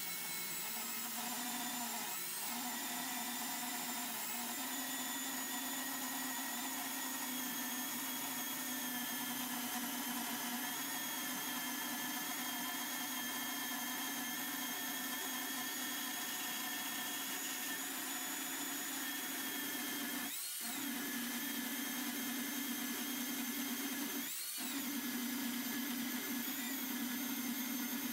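Electric chainsaw on a homemade chainsaw mill ripping along a log, its motor whining steadily under load. Twice near the end the pitch briefly rises and falls back. The saw is being pushed hard through the cut, which the owner thinks overloaded it.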